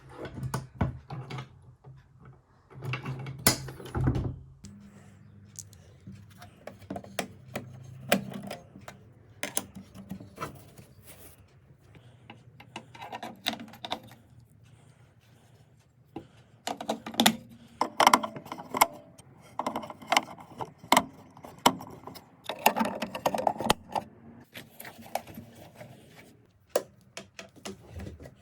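Irregular clicks, knocks and light rattling from handling a small metal pistol safe and its parts, with denser runs of clicks about three seconds in and again between about seventeen and twenty-four seconds.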